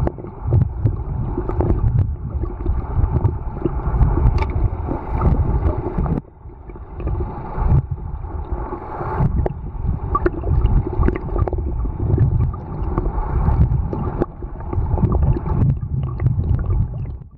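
Muffled underwater wash from a camera held just below the surface: water sloshing and gurgling around the microphone, with an uneven low rumble and scattered small clicks, briefly dropping away about six seconds in.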